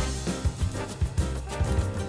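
Upbeat background music with a steady beat and bass, playing under a title card.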